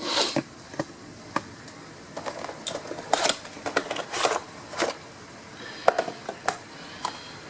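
Packaging of a diecast model airliner being handled as it is taken out of its box: short rustles and scattered clicks and taps.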